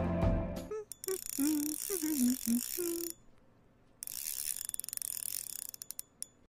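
Outro music cutting off, followed by an animated logo's sound effects: a run of short wavering glides in pitch, then after a short gap a crackling hiss with scattered clicks that stops just before the end.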